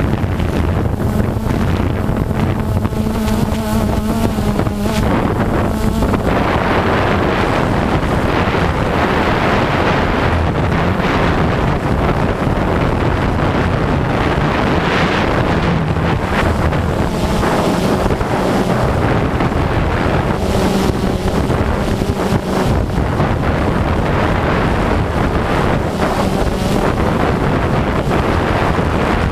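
DJI Phantom 2 quadcopter's motors and propellers whirring, picked up by the GoPro on board, with wind buffeting the microphone. For about the first six seconds the hum is steady and pitched, then a broader rushing sound takes over while the hum wavers lower.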